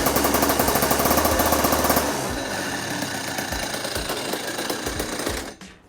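Two-stroke go-kart engine running hard with a rapid, loud beat, dropping back about two seconds in and dying away near the end. The engine has just been rebuilt with a honed barrel and a new piston and is being run in.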